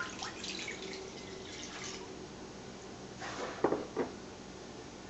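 Quiet kitchen handling sounds: light scraping and rustling, then a short clatter with two sharp knocks a little past halfway.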